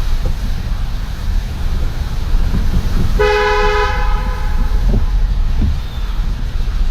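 A car horn gives one two-tone blast of under a second, about halfway through, over the steady low rumble of a car driving.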